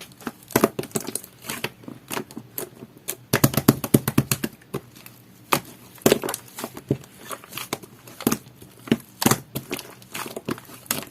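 Sticky, jelly-textured slime being squeezed and stretched by hand, giving irregular wet clicks and pops, with a dense run of them about a third of the way through.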